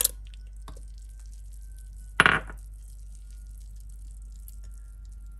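Mango chunks tipped from a ceramic plate into a glass blender jug of milk, with one sharp clink and splash about two seconds in.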